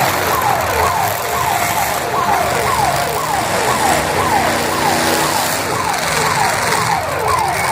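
A siren sounding a falling tone over and over, about two sweeps a second, over the steady noise of running car engines.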